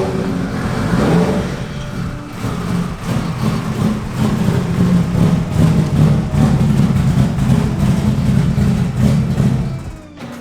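A tuned Honda engine burning E85 runs at a choppy, loping idle from an aggressive camshaft, with some rises in revs, then cuts off about ten seconds in.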